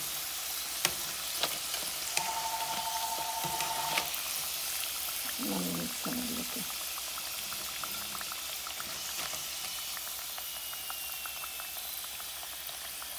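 Potato wedges deep-frying in hot oil in a wok, a steady sizzle throughout. Several sharp clicks and taps come through it as metal tongs knock against the pan while the wedges are lifted out.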